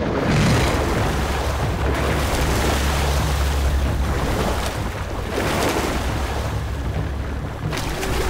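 Two bull hippos fighting in water: heavy, continuous splashing and churning in repeated surges, with a deep rumble underneath.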